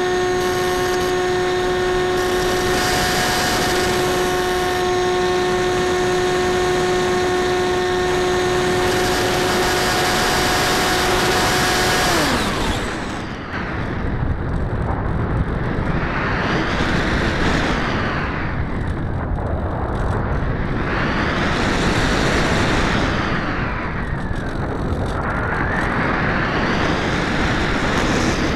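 A Multiplex EasyStar II RC plane's electric motor and pusher propeller whine steadily under power. About twelve seconds in the throttle is cut and the whine winds down and stops. After that only air rushing past the onboard camera is heard, swelling and fading every two to three seconds as the plane glides.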